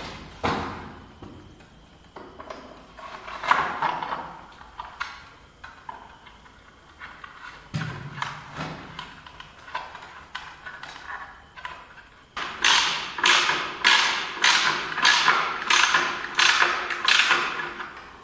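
Workshop knocking and handling noises: scattered knocks and thuds, then a run of about a dozen sharp, evenly spaced strikes, roughly two a second, near the end.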